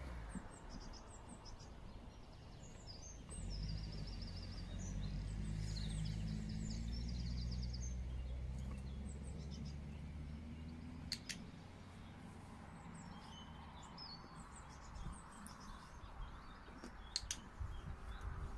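Small birds chirping and singing in short repeated phrases over a low rumble that swells through the middle, with two sharp clicks, one about eleven seconds in and one near the end.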